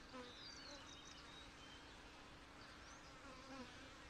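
Faint, steady buzzing of honey bees swarming over the top bars of an open, crowded hive, with a few faint chirps about half a second in and again around three seconds in.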